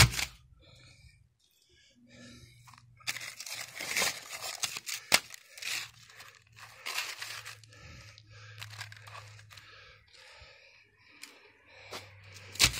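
Scored asphalt roof shingles being torn apart and handled: a run of rough tearing and crunching with sharp snaps, the loudest about five seconds in.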